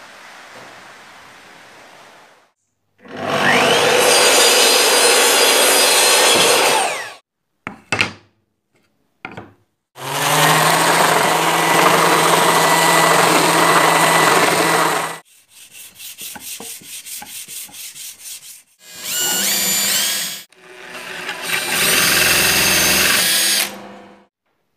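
A string of short power-tool runs on Australian oak, cut one after another with brief gaps between them. One of them, a long steady run in the middle, is a green Bosch sander working an oak board. There is also a stretch of light ticking at about five a second, and the last run rises as the tool spins up.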